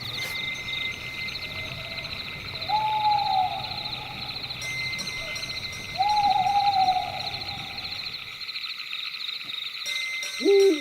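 An owl hooting twice, each hoot held briefly and falling slightly at the end, over a steady high pulsing trill of night insects. Near the end a louder call slides sharply down in pitch.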